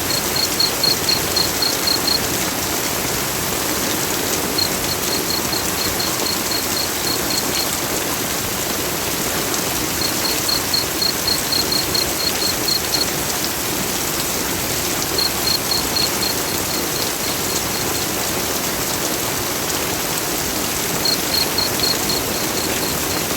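Heavy rain falling steadily. Through it, runs of rapid high chirps, about five a second and each run lasting two to three seconds, come back every five seconds or so.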